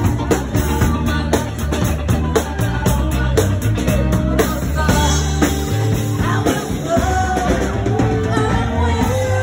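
Live rock band playing loud: drum kit hits over heavy bass, with a voice singing.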